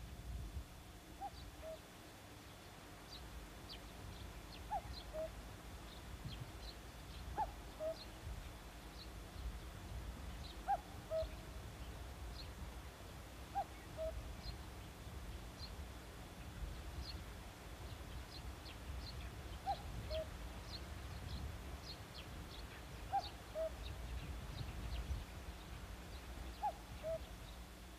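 Faint outdoor birdsong: one bird gives a two-note call, a short higher note then a lower one, repeated every three seconds or so, while small birds chirp faintly and high.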